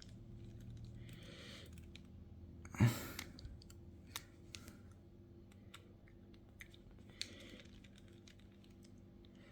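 Scattered small clicks and taps of tools and parts during iPhone 7 disassembly, with one louder knock about three seconds in.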